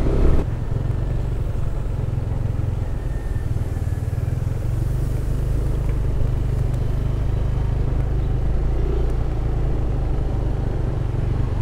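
Yamaha Aerox 155 scooter's single-cylinder engine running steadily while riding, heard as an even low rumble.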